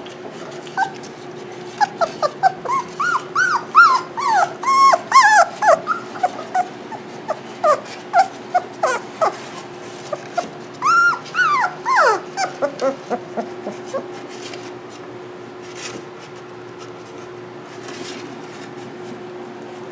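Several young Labrador retriever puppies whining in many short, high cries that rise and fall in pitch, often overlapping. The cries die away about two-thirds of the way through, leaving a steady faint hum.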